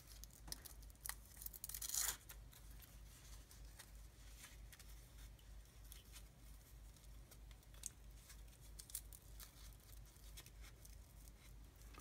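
Velcro hook-and-loop strap ripping briefly about two seconds in as it is worked onto a small action camera. Faint scattered clicks and rustles of hands handling the plastic camera and foam ring follow.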